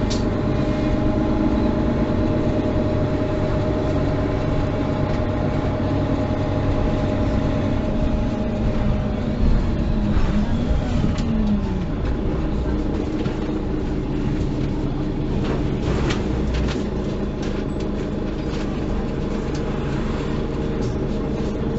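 Mercedes-Benz O530 Citaro city bus with a Euro 4 diesel engine, heard from inside while under way: steady engine running with road and tyre noise. About ten seconds in, the engine note falls in pitch, and in the last few seconds there are scattered short clicks and rattles.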